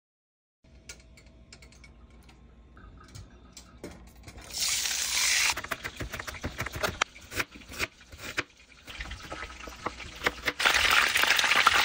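Butter melting in a hot nonstick wok, sizzling faintly with small crackles, then breaking into loud hissing sizzle twice, briefly about four and a half seconds in and again for the last few seconds.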